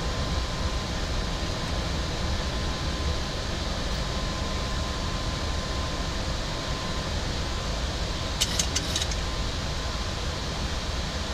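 Steady cockpit noise of a Boeing 737 MAX 8 in the climb: airflow and engine noise with a low rumble and a faint steady whine. About eight seconds in comes a quick run of sharp clicks.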